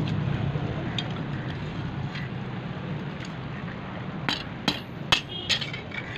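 A hand hammer striking a thin steel axe blade laid on a steel anvil block: a few light metal clinks as the blade is handled, then about five quick, ringing hammer blows near the end, over a steady low rumble.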